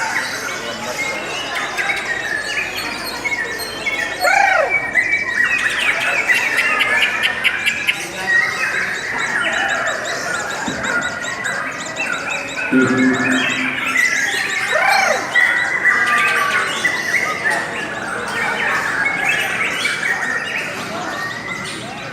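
Lovebirds chattering and squawking without a break, a dense run of chirps and short arched whistling notes, with a brief low steady tone about halfway through.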